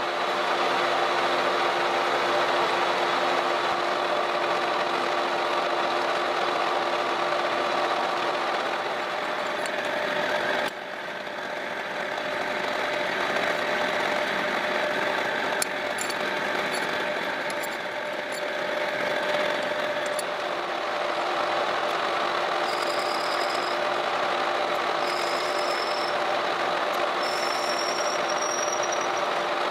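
Metal lathe running steadily with a constant motor and gearbox hum as it machines a small threaded fitting. Near the end, three short rising whistles come from the cutting tool turning the spinning part.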